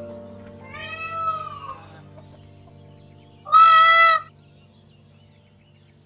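Male Indian peafowl calling: a drawn-out, arching wail about half a second in, then a louder, shorter, flat-pitched cry about three and a half seconds in.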